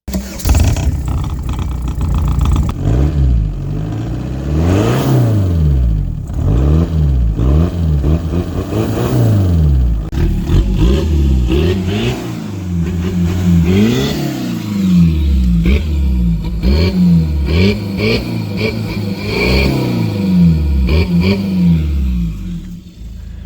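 Audi A4 1.9 TDI four-cylinder turbodiesel revved up and down again and again from idle, about ten blips of the throttle. It is an exhaust sound check around a catalytic converter delete.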